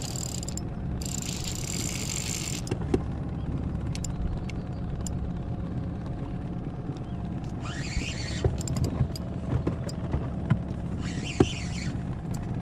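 Spinning reel being cranked in short bursts of whirring as a big catfish is wound in with little resistance. Under it is a steady low rumble, with a few light knocks.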